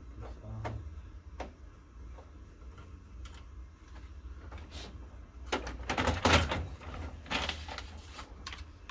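Plastic parts of an opened HP laser printer clicking and scraping as a unit is worked loose and pulled out by hand. Scattered single clicks come first; about two-thirds of the way through there is a louder stretch of rattling and sliding.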